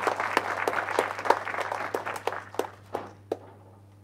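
Audience applauding: dense clapping that thins out to a few last scattered claps and stops about three seconds in.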